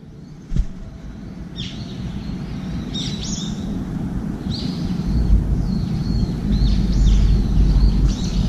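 Birds calling: a series of short high chirps and downward-sweeping calls, over a low rumble that grows louder about halfway through. A single sharp knock sounds just after the start.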